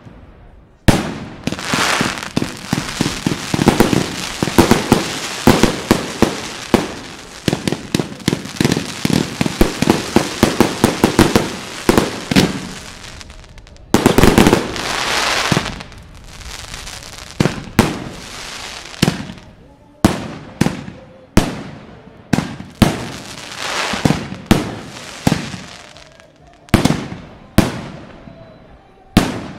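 Enigma Fireworks 'Tears of Heaven' 259-shot compound fireworks cake firing: rapid volleys of shots launching and bursting over a dense crackling haze, a louder, longer burst about halfway through, then shots coming further apart.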